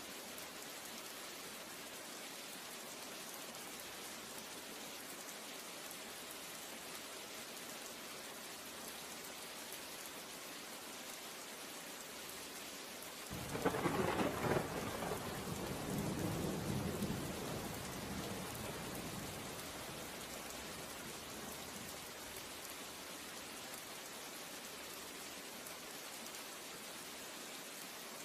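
Steady rain. About halfway through comes a sudden clap of thunder that rumbles away over about five seconds.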